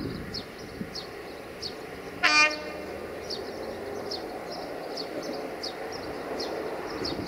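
One short horn blast from an 060-EA (LE 5100 kW) electric locomotive, about two seconds in, over the low rumble of the slowly approaching freight train. Short high chirps repeat throughout.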